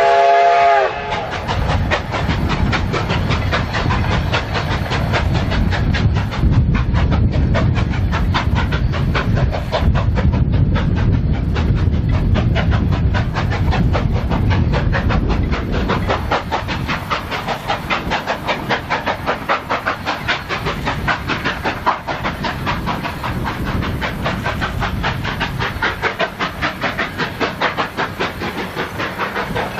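A narrow-gauge steam locomotive's whistle ends about a second in. The locomotive then chuffs in quick, steady exhaust beats as it pulls its train past. The beats grow a little quieter and more distinct after about halfway.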